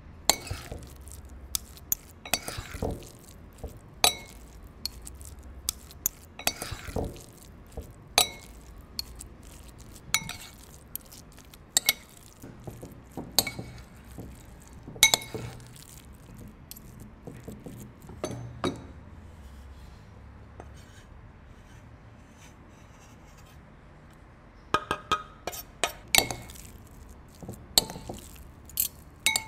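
Metal spoons clinking and scraping against the sides of a bowl while stirring a sticky ground-pork filling. Sharp clinks come irregularly, about one a second, with a quieter spell of soft mixing about two-thirds through and a quick run of clinks near the end.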